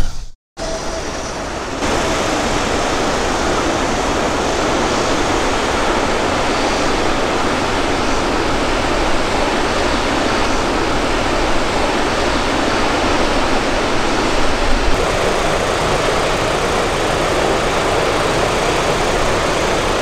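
Steady rush of river water pouring over a low concrete weir, stepping up in level about two seconds in and then holding constant.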